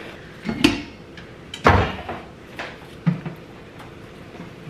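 Several knocks and clunks of a stainless-steel Instant Pot electric pressure cooker being moved and handled on a kitchen counter, the loudest about a second and a half in.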